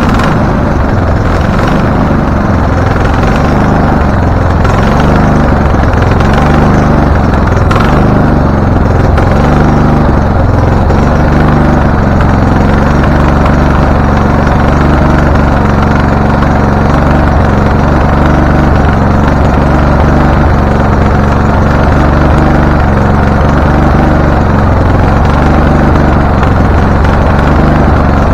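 Briggs & Stratton engine of a Husqvarna riding mower running continuously with a somewhat uneven note. The engine, which has a backfiring fault, is running reluctantly just after a hard start.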